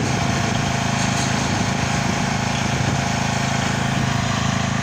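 Diesel engine of a Komatsu excavator running steadily at a constant speed, an even hum with no change in pitch or load.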